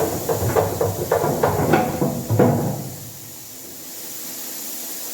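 Hammer blows on steel: a quick, irregular run of sharp metallic clanks that ring after each strike for about two and a half seconds, then a quieter steady hiss.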